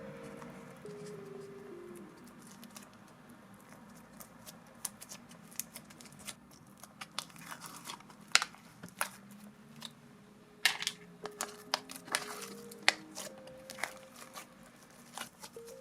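Slime being mixed and squished, giving irregular sticky clicks and pops that come thicker after a few seconds, the loudest ones in the middle and later part. Soft background music plays underneath.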